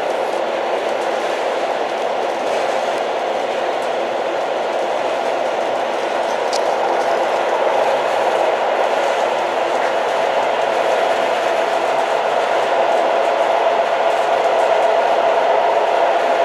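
Old train running steadily, a continuous noise with a faint steady tone that grows stronger in the second half. A single brief click sounds about six and a half seconds in.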